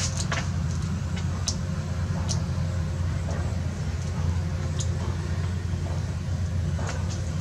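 Steady low rumble of a running engine, like a motor vehicle idling, with scattered short clicks over it.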